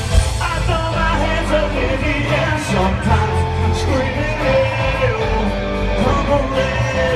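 Live country band playing at a concert, with a male lead vocal over a heavy bass and drum beat.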